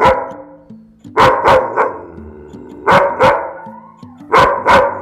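Agitated, aggressive shepherd-type dog barking at its handler in short volleys of two or three loud barks, a volley about every one and a half seconds, over low background music.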